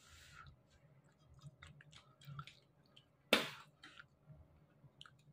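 Gloved hands handling and bending insulated hookup wires on a workbench: small scattered clicks and rustles, with one sharper click about three seconds in.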